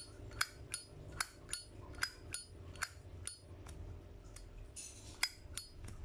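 Chrome-plated brass Zippo lighter's lid flicked open and snapped shut again and again, a bright metallic clink about two or three times a second. Near the end the flint wheel is struck with a short rasp and the lighter lights.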